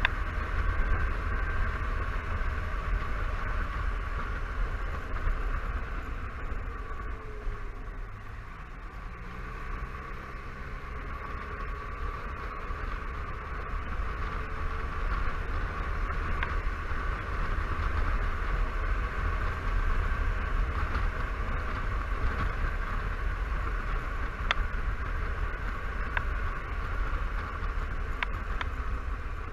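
Honda Silverwing 600 scooter's parallel-twin engine running while riding, under a heavy low rumble of wind on the microphone. The sound eases off and dips about seven seconds in, then builds back up as the scooter picks up speed again.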